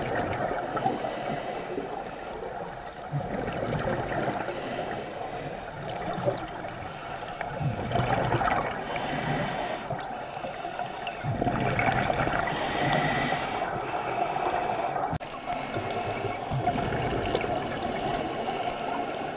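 Scuba regulator breathing underwater: a short hiss of inhalation about every four seconds, between bouts of bubbling from exhaled air.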